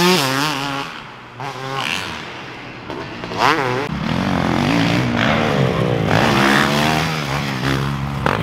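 Motocross dirt bike engine revving hard, its pitch climbing and falling back again and again with the throttle. It drops quieter for a couple of seconds about a second in, then comes back strongly.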